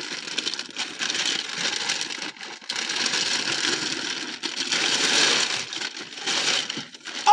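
Plastic packaging bag rustling and crinkling as it is handled and pulled open, coming in irregular swells.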